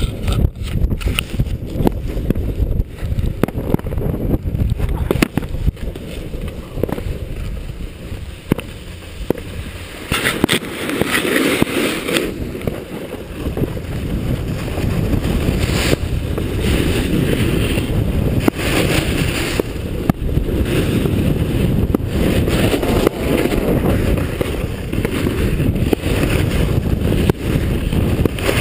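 Wind rushing over an action camera's microphone while snowboarding downhill, with the board's edge scraping and hissing over groomed snow, louder in spells as it carves turns.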